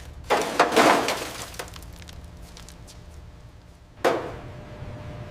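Clattering, crunching impacts of hard debris: a loud burst of rattling hits about half a second in, a rough scraping noise, then a sudden hit about four seconds in.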